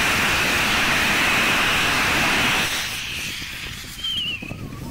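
Small rocket engine with a bell nozzle firing on a test stand, about 100 kg of thrust, a steady hissing rush that cuts off a little under three seconds in as the engine shuts down. A brief high chirp follows about four seconds in.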